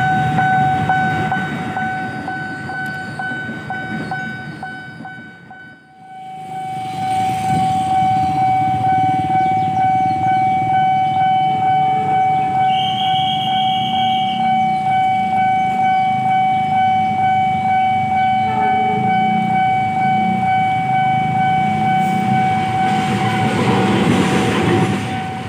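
Railway level-crossing alarm sounding a steady, evenly pulsing tone as a train passes with a low rumble. A brief higher tone sounds about halfway through, and a rush of noise swells near the end.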